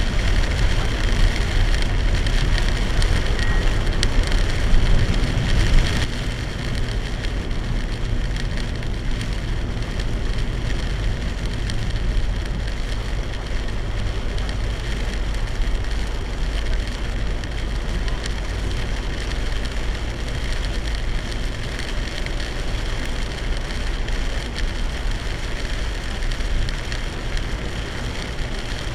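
Heavy rain falling on a moving car, heard from inside the cabin, over steady tyre and road noise. The noise drops a little about six seconds in.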